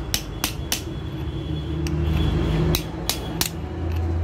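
About seven sharp metallic taps at irregular intervals: the kick-starter shaft oil seal of a Hero Splendor Pro engine being tapped home into the clutch cover.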